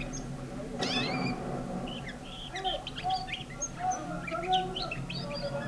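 Caged nightingale singing a varied phrase of quick high chirps and whistles, opening with a dense burst of rising notes about a second in, with lower, fuller whistled notes in the middle.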